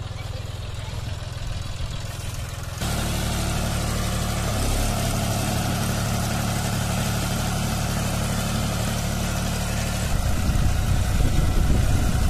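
John Deere 5310 tractor's three-cylinder diesel engine running under load, straining with its rear wheels dug into soft sand. The engine steps up in level about three seconds in and grows louder and rougher near the end as the tractor fails to climb out, stuck in two-wheel drive.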